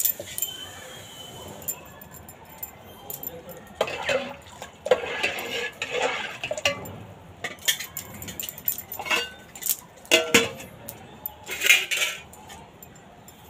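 Steel pot being handled on a hard surface, giving irregular clinks and clanks in several clusters, with metal and glass bangles jingling.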